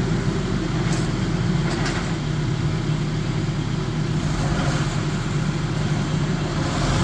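Stump grinder's engine running steadily, with a couple of faint ticks about one and two seconds in.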